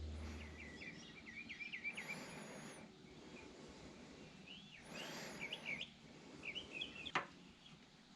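A small bird chirping in quick twittering phrases, in two bouts, over a faint background. A low hum cuts off just under a second in, and a single sharp click comes near the end.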